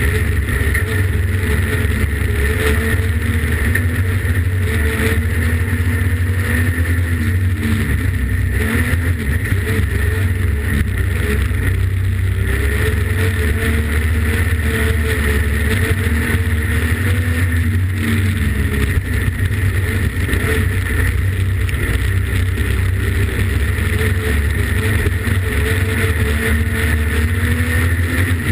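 Streetstock race car's engine heard from inside the cockpit, running hard on a dirt oval, its revs rising and falling over and over as the car goes through the corners and down the straights, over constant road and wind noise.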